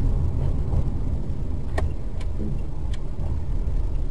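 Steady low rumble of a car's engine and tyres, heard from inside the cabin while driving, with a few faint clicks.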